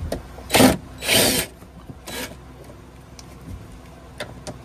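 Cordless power driver with a Phillips bit spinning out the screws of a golf cart's charger receptacle, in three short bursts within the first couple of seconds.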